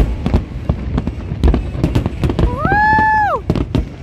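Fireworks bursting in quick, irregular succession, a dense run of bangs and crackles. Around the middle, a single high whistle-like tone rises, holds for about half a second and drops away.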